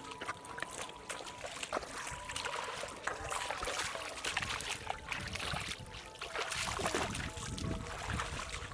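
Water splashing and trickling, with many short clicks and knocks, in shallow water being worked for fish.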